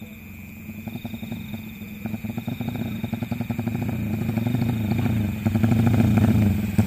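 Motorcycle engine approaching, running with a fast even exhaust beat and growing steadily louder as it nears.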